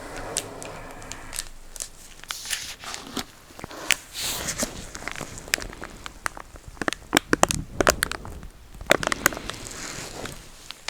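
Close-miked crinkling and crackling of a plastic packet of cleansing wipes being handled and squeezed, with many sharp, irregular clicks.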